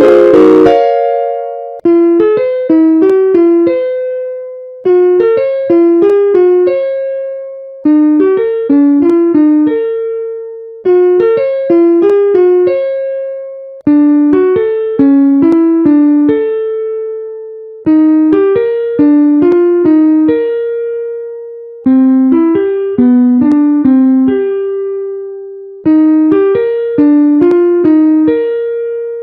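Electric piano playing the same short phrase over and over: a run of quick notes ending on one held note that fades away. It repeats about every three to four seconds, shifting slightly in pitch from one repeat to the next.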